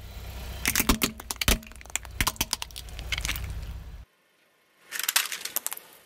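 Hard plastic toy cracking and snapping as a car tyre rolls over it: a dense run of sharp cracks over a low rumble from the car, cut off suddenly about four seconds in. A second short burst of cracking follows near the end.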